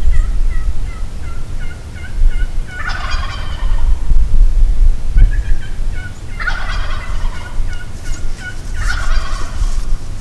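Wild turkey gobbler, a Merriam's, gobbling three times, each gobble a rattling call about a second long, a few seconds apart. Before the first gobble comes a run of short yelping notes, about three or four a second.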